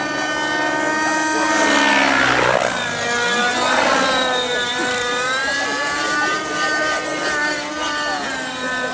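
Velocity 50 N2 model helicopter in flight: its Redline 56 glow-fuel engine and rotor blades run steadily while the pitch bends up and down with the manoeuvres. There is a broad swell about two seconds in, and the tone sweeps down just after.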